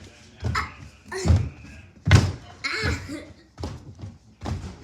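A large inflatable bouncy ball thudding on the floor as it is bounced, about six dull thumps a little under a second apart.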